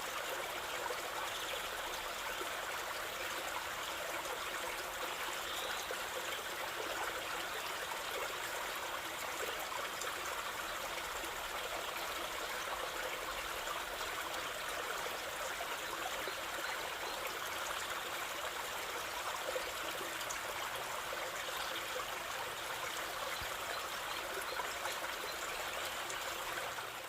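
Water of a stream flowing and trickling in a steady, even rush, with a few faint bird chirps now and then.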